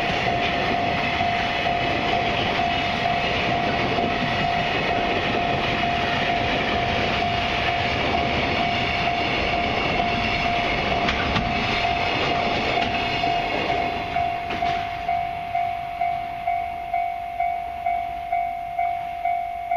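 Container wagons of a freight train rolling slowly past, with a level-crossing alarm ringing steadily beneath the rail noise. About 14 seconds in the train noise dies away and the crossing alarm rings on alone, just under two dings a second.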